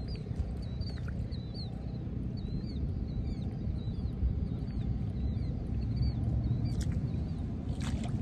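Wind buffeting the microphone in a steady low rumble, with a small bird chirping short, repeated notes about twice a second above it.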